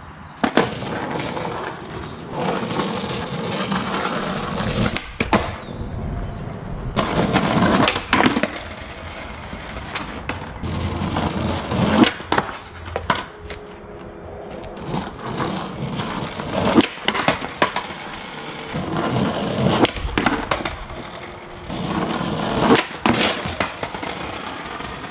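Skateboard wheels rolling on rough asphalt, broken several times by the sharp crack of the tail popping and the board slapping back down as the skater tries backside 180s. One attempt ends in a bail.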